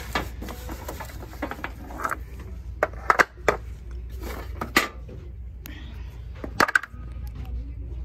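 Boxed decorative signs being handled and pulled off a metal store shelf: a series of sharp knocks and clatters, irregularly spaced, a few of them loud.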